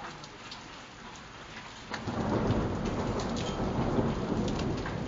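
Snow pellets pattering and ticking on concrete steps. About two seconds in, a deep rumble of thunder swells up and keeps rolling.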